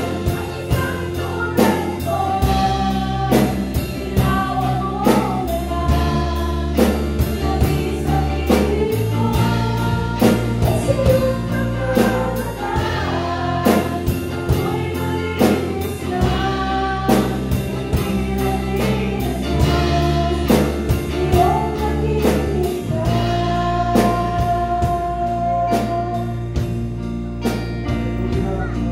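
Gospel worship song sung in Tagalog by women on microphones over a band accompaniment. Sustained bass notes change every few seconds under the voices, and regular drum hits keep a steady beat.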